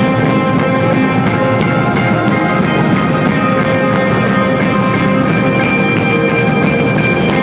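Post-hardcore rock band playing live, an instrumental passage: a loud, steady, dense wall of guitars and drums with held ringing notes.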